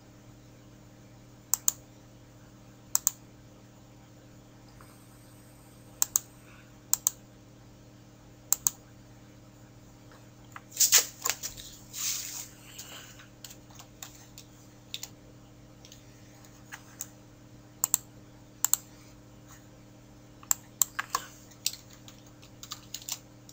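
Computer mouse clicks and keyboard keystrokes while a value is entered: sharp single clicks, several in quick pairs, a burst of typing about eleven seconds in, and a quick run of clicks near the end, over a steady low hum.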